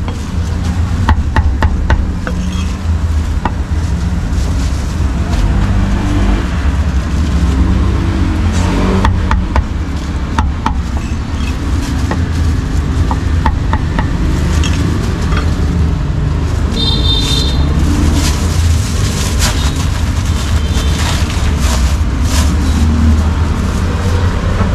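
Meat cleaver chopping roast pork on a thick round wooden block: a quick run of sharp knocks about a second in, then scattered single knocks. A steady low rumble of street traffic runs underneath.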